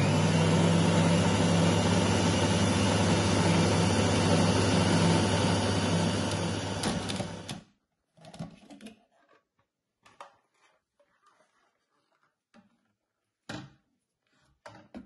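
A food processor's motor runs steadily at full speed, blending hazelnuts and chocolate into a thick paste, then cuts off about seven and a half seconds in. After that come scattered short scrapes and knocks as a spatula scrapes the paste down the bowl.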